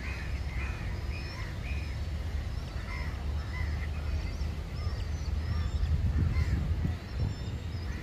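Several birds calling: a run of short arched calls in the first two seconds and again about three seconds in, with thinner high chirps scattered throughout, over a steady low rumble.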